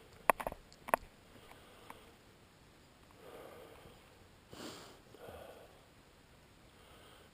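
Two sharp clicks within the first second, then a few soft sniffs.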